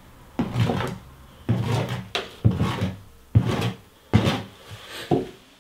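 Hand scraper scratching grooves into a coat of firming bonding plaster: about six scraping strokes, each roughly half a second long. The scoring gives the patch a key for the skim coat.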